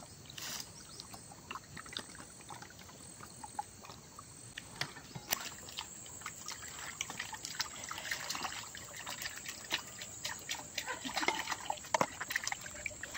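Water poured from a small metal mug, trickling over hands and splashing onto a steel plate, with scattered small clicks and clinks.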